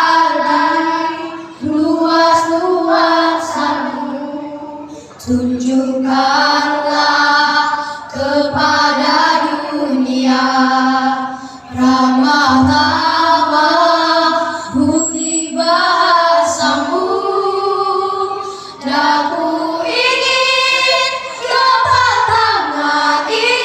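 Women's voices singing together as a group, in long held phrases with short breaks between them.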